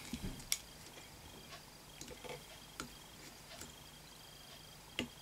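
Faint, scattered clicks and light taps of fly-tying tools and thread being handled at the vise while the fly is finished off with half hitches. The sharpest clicks come about half a second in and again near the end.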